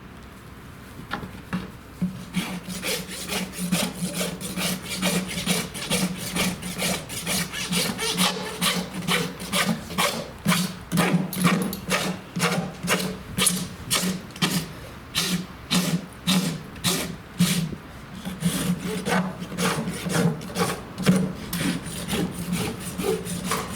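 Farrier's rasp working the hoof wall in quick back-and-forth strokes, roughly two to three a second, starting about two seconds in. The flared wall of a quarter-cracked hoof is being rasped back to clean horn so that the acrylic repair will bond.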